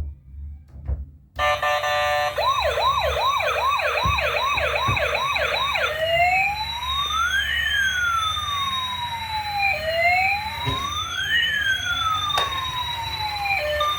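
Electronic siren of a toy emergency vehicle: after a few faint clicks, a quick run of rising yelps about two a second, changing at about six seconds in to a slower rising-and-falling wail. A beeping tune starts near the end.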